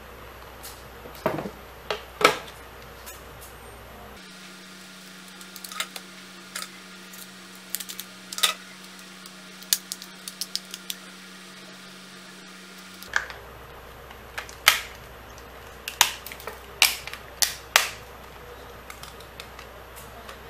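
Sharp plastic clicks and snaps as a laptop battery pack's plastic casing is pried apart and its cylindrical cells are handled. The clicks come singly and in short clusters.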